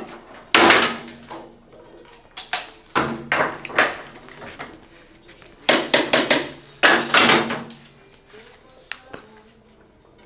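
Metal tools and wheel parts clanking and knocking as a motorcycle rear wheel is taken off and refitted, in a few short clusters of sharp knocks with quieter gaps between.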